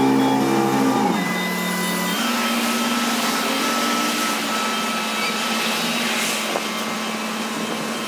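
Heavy diesel engine of paving machinery running at high speed. About a second in, its pitch drops as it slows, and it settles to a steady lower hum, with passing street traffic behind it.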